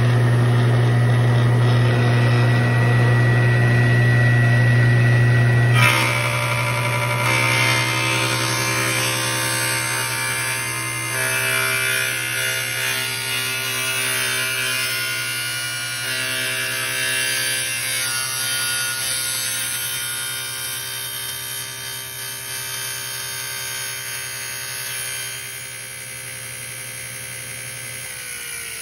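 Table saw running with a dado blade stack fitted, a steady motor hum with many tones above it. About six seconds in the sound turns higher and rougher as the spinning dado blade is wound up through the blank throat plate, cutting its zero-clearance slot. Near the end the pitch begins to fall as the saw winds down.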